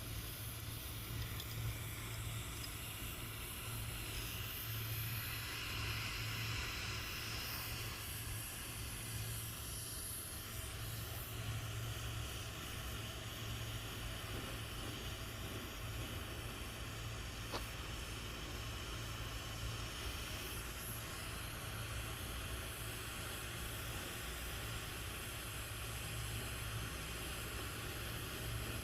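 Steady hiss of gas flowing during refrigeration work, over a constant low hum.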